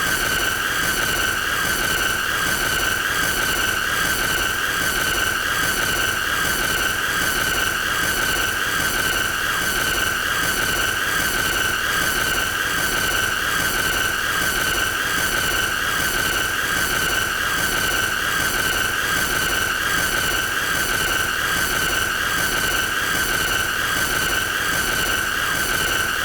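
A continuous shrill squealing tone held at one pitch, with a regular pulsing running through it, never changing or stopping.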